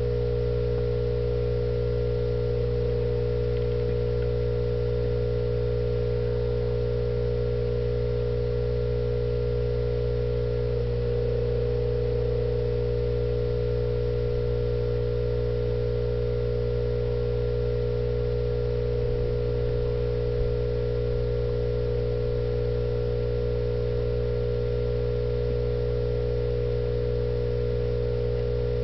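A steady electrical hum: a constant mid-pitched tone over a lower drone, unchanging throughout, with a small tick about two-thirds of the way through.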